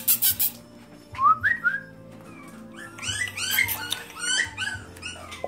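Miniature schnauzer puppies whining and yipping in short, high cries that rise and fall in pitch: a couple of whines about a second in, then a quick run of yips in the second half.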